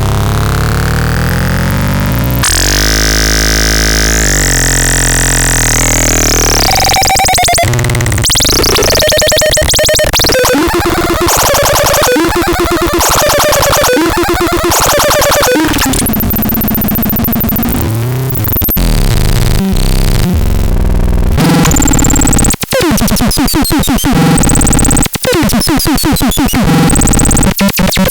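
Electronic synthesizer putting out harsh, noisy tones that change every few seconds: held layered drones, sweeping and gliding pitches, rapid pulsing stutters and a stretch of hiss.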